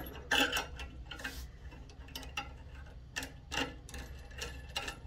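Irregular small metal clicks and taps as a threaded barrel sensor with its retaining nuts is handled and fitted onto the end of a flexible gooseneck arm.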